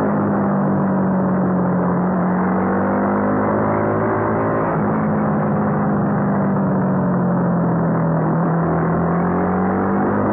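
Honda CBR250R's single-cylinder engine running at steady mid-high revs under way, with wind rush. Its pitch sags slightly and recovers twice as the throttle eases and opens through the corners.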